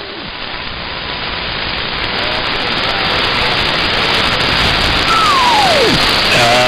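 CB radio static: a loud, even hiss of band noise that grows steadily louder. About five seconds in a single whistle glides down in pitch, and in the last half second a garbled, off-tune voice starts to break through.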